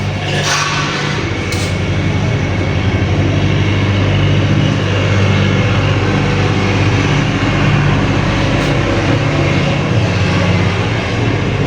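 Steady low electrical hum over a constant hiss, with a short clatter about half a second in.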